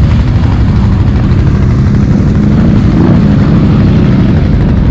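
ATV engines running, a loud, steady low rumble.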